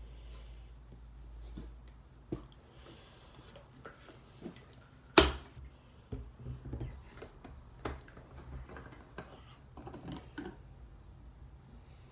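Handling noise: scattered light clicks and taps from a plastic mouthwash bottle and a paper cup and its paper sleeve being handled, with one sharp, loud knock about five seconds in.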